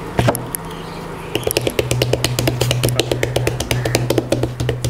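An earthenware biryani pot knocks down onto the table as it is turned upside down. About a second and a half later hands begin patting quickly on its upturned base, about eight taps a second, to loosen the biryani so it drops out.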